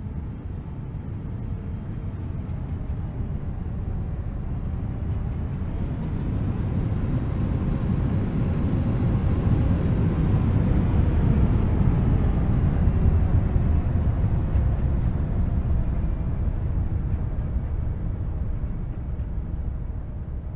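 An aircraft passing by, its engine noise swelling to a peak about halfway through and then fading away.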